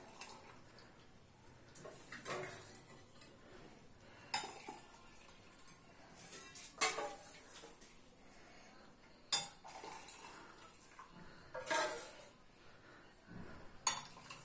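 Stainless steel ladle clinking against a steel pot and small steel cups while liquid is ladled from the pot into the cups, with a sharp clink about every two seconds.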